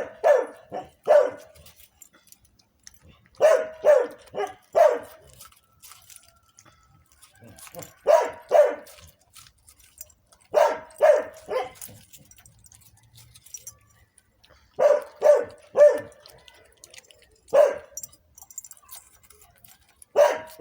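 A dog barking in quick runs of three or four barks, the runs a few seconds apart, with one single bark between them near the end.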